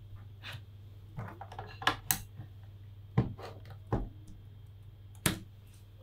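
Scattered small clicks and knocks as cables and plugs are handled and fitted at a USB-C docking station, over a low steady hum.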